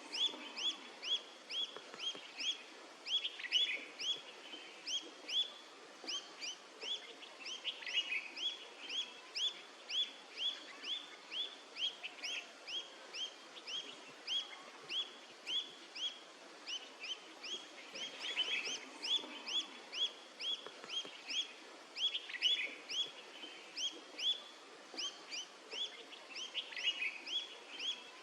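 A bird calling a long, even series of short, high chirps, each dropping in pitch, about two to three a second.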